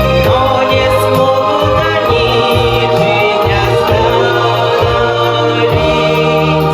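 Music with voices singing over a steady accompaniment and a moving bass line: a song from the stage musical.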